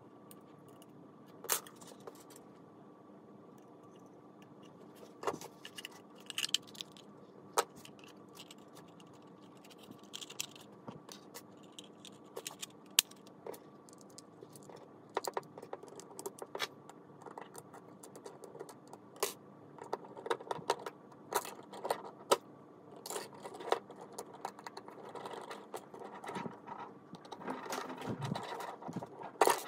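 Small hard plastic parts, 3D-printed clock gears and pieces, clicking, knocking and scraping as they are handled and fitted together. The clicks come at irregular intervals and grow busier toward the end, over a steady faint hum.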